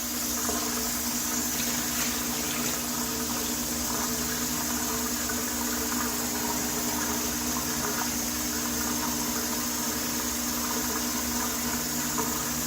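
Water running steadily from a tap during rinsing, with a steady hum under the rush of the water.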